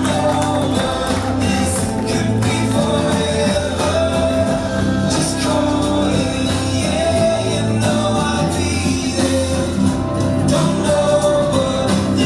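Music: a song with a singer over steady instrumental backing.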